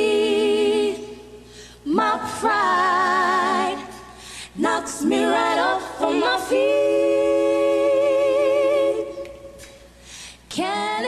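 Female R&B vocal trio singing a cappella in close harmony. There are several long held chords with vibrato, sung in about four phrases with short breaks between them.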